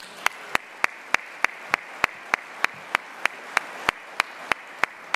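Conference audience applauding, with one nearby pair of hands clapping sharply and evenly about three times a second over the crowd's applause.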